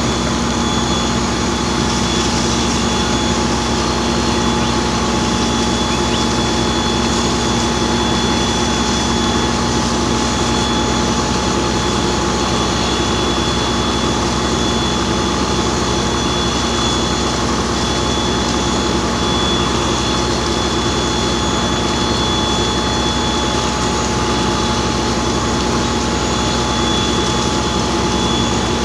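Fire engine running its pump to supply the hose lines: a loud, constant engine drone with a steady high whine over it.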